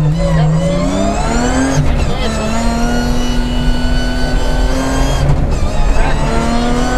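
BMW 325 Group A rally car's straight-six engine accelerating hard, heard from inside the cockpit: the revs climb, drop with an upshift about two seconds in, hold high, and drop again with a second upshift just after five seconds before climbing once more.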